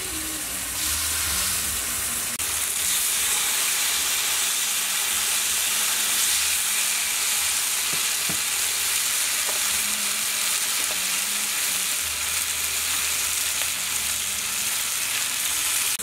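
Slices of cow udder sizzling steadily as they fry in oil in a grill pan, growing louder about a second in.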